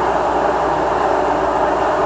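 MTR M-Train electric multiple unit heard from inside the carriage while running at speed through a tunnel: a steady, loud rumble of wheels and running gear, even throughout, with a low hum beneath.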